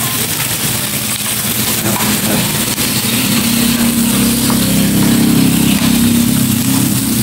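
Sliced pork sizzling on a tabletop grill plate, a steady hiss, with a low engine-like drone that swells in the middle and fades near the end.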